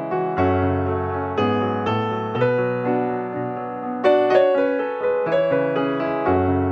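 Background music: a gentle piano piece, notes struck about once a second and left to ring.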